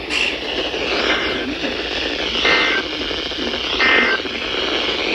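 Weather radio receiving the EAS end-of-message: three short two-tone SAME data bursts, a little over a second apart, over heavy radio static.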